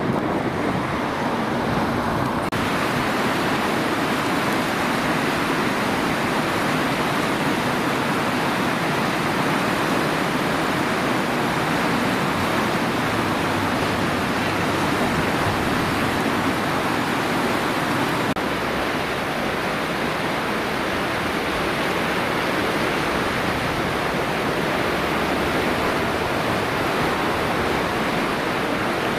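A river in flood pouring over a weir: a steady, unbroken rush of white water. The noise changes character abruptly a couple of seconds in and again about two-thirds through.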